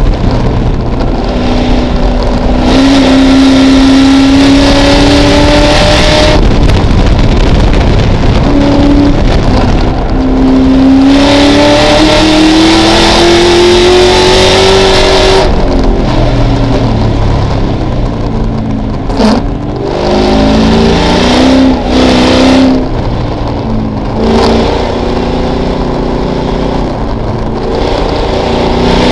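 Ford Mustang race car's engine at racing speed, heard from inside the cabin. Its pitch climbs under full throttle and drops back at each gear change, falls away about halfway through under braking, and dips briefly off the throttle several times before pulling again near the end.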